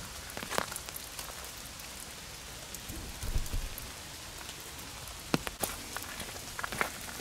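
Steady rain falling in a forest: an even hiss with scattered sharp drop taps, and a few steps on a wet gravel path. A short low bump comes about three seconds in.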